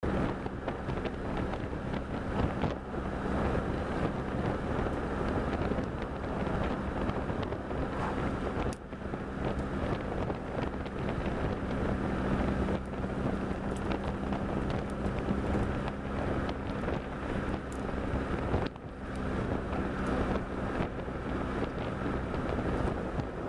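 Sports car cruising along a country road: a steady engine drone under heavy wind buffeting on the microphone and road noise. There are brief dips in level about nine and nineteen seconds in.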